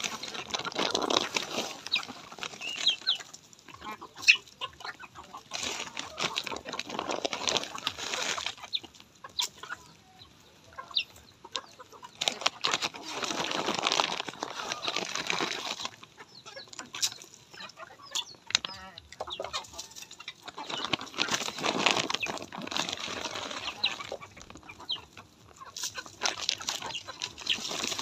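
Native chickens clucking and calling while feeding, with repeated bursts of rustling noise lasting a second or two each.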